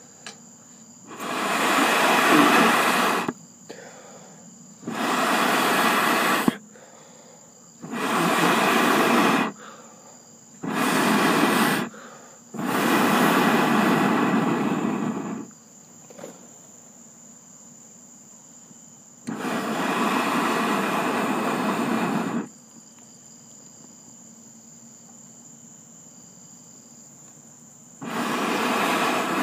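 A person blowing hard on burning charcoal to fan it into flame, in seven long breaths with pauses between them, which make the coals throw sparks. Crickets chirr steadily underneath.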